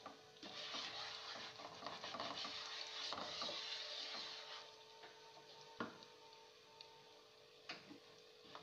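Jaggery melting in ghee in a kadhai, sizzling faintly while a spatula stirs and scrapes through it, with a couple of sharp taps of the spatula against the pan in the second half.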